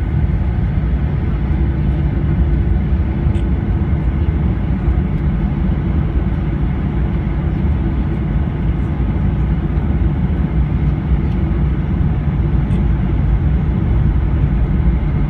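Steady rumble of a Boeing 737-800's jet engines and airflow, heard from inside the passenger cabin.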